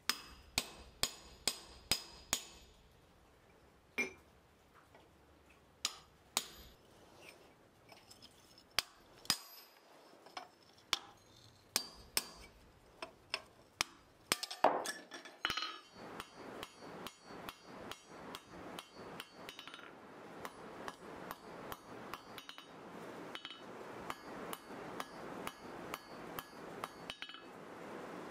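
Hand hammer striking a punch and a chisel held against hot mild-steel bar stock on an anvil: sharp metallic clinks with a short ring. A quick run of blows comes at the start, then scattered single strikes, and from about halfway a steady run of blows at two to three a second.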